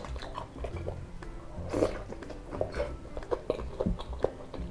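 Close-up chewing and biting of battered fried tempeh (tempe mendoan), with irregular mouth clicks and one louder bite or crunch about two seconds in.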